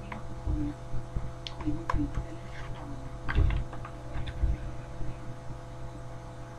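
Plastic binder pages with sleeved trading cards being turned and handled: scattered light clicks and soft crinkles over the first four seconds or so, then quieter, over a steady low hum.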